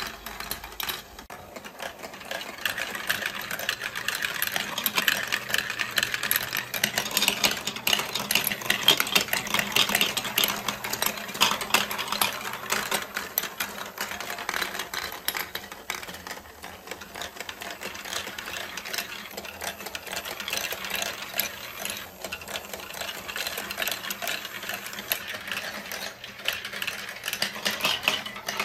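Plastic balls rolling and clattering through a plastic block marble-run course, a dense, continual rattle of small clicks as they drop and bump along the tracks. A small electric ball elevator runs under it with a faint steady hum.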